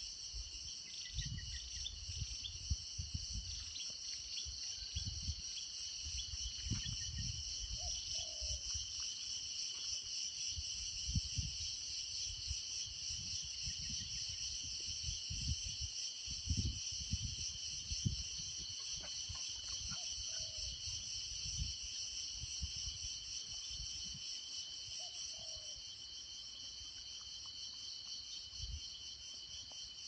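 Dense, steady chorus of insects, a shrill high hum in several bands that does not let up. Low, irregular rumbles come and go underneath, and a few brief faint calls stand out about a third of the way in and twice more later.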